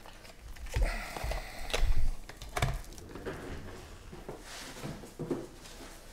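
Sealed trading-card packs being handled and set down on a table: several light knocks and taps with wrapper rustle in the first few seconds, then quieter scattered rustling.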